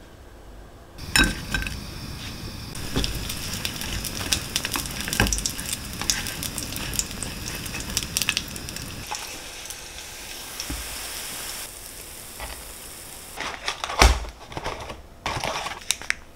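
Food frying and sizzling in a pan, with a utensil clicking and scraping against the pan; a sharp knock about 14 seconds in.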